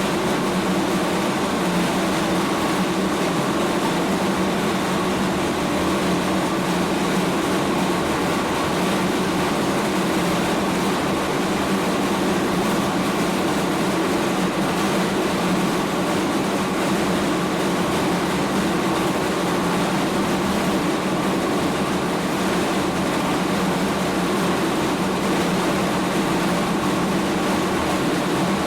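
Feed mill machinery running steadily: a dense, unchanging mechanical hum and rush with a few steady tones in it, no breaks or single knocks.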